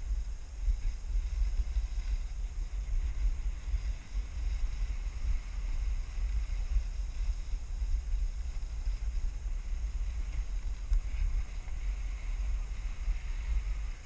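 Wind buffeting the camera's microphone as a skier moves downhill, a heavy rumble that swells and drops, with a fainter hiss of skis sliding over packed snow.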